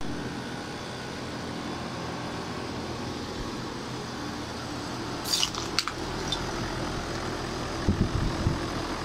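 Steady hum of running Trane air conditioner units. About five seconds in there is a short crackle with a few sharp clicks, and a few low thumps come near the end.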